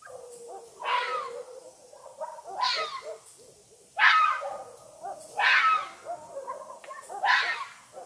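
Red fox calling: five loud calls, each falling in pitch, about one every one and a half to two seconds, with quieter low sounds between them.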